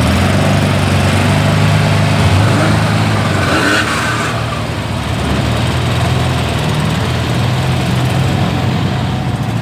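Air-cooled engine of an early Porsche 911 race car idling steadily, with a brief burst of higher-pitched noise about four seconds in.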